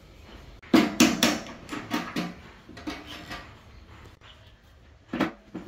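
Metal tools and lathe parts knocking and clanking as they are handled at a stopped wood lathe: a quick run of sharp knocks about a second in, a few lighter ones over the next two seconds, and one more near the end.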